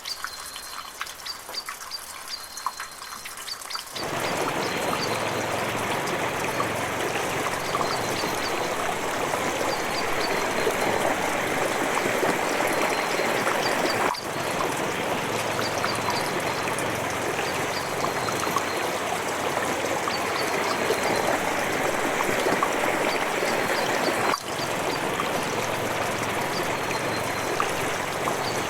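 Water dripping in separate drops, then from about four seconds in a steady trickle of running water, with two very brief breaks in it.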